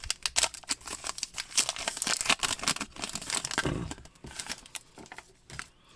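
Foil wrapper of a baseball card pack crinkling and tearing as it is opened, a run of small crackles, with a dull bump a little past halfway.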